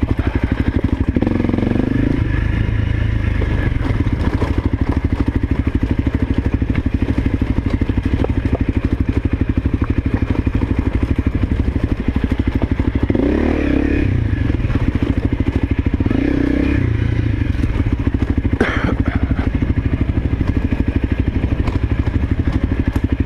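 Honda CRF250L's single-cylinder four-stroke engine running while riding a dirt trail, its revs rising and falling a few times, with a sharp clatter about three-quarters of the way through.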